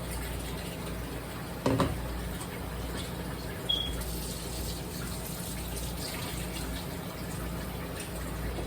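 Kitchen tap running water into a sink, with a loud knock about two seconds in and a brief high squeak near the middle.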